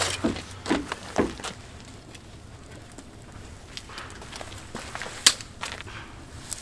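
Scattered light knocks and clicks, several in the first second or so, then sparser, with one sharp click about five seconds in.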